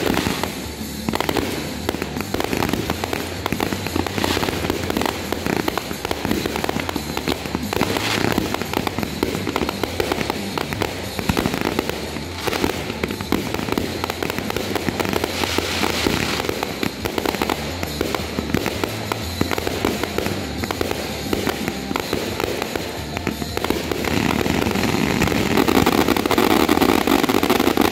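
Fireworks display: a dense, continuous barrage of shells bursting in rapid overlapping bangs, growing louder near the end.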